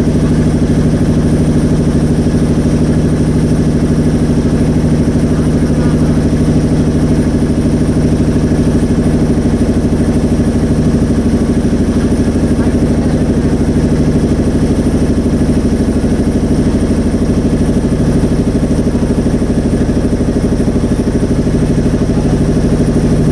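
Motorboat engine running steadily at an even pace, loud and close, with a fast, even pulse and no change in pitch.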